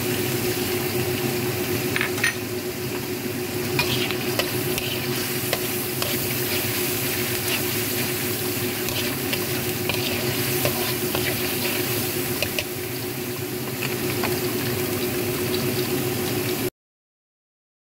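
Chilli paste sizzling as it fries in oil in a wok, with a spatula scraping and tapping the pan as it is stirred, over a steady low hum. The sound cuts off abruptly near the end.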